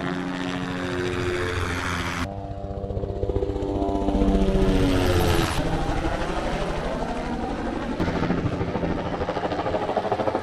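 Helicopter flying low overhead, its rotor chop and engine whine swelling to their loudest about four to five seconds in, with the pitch dropping as it passes.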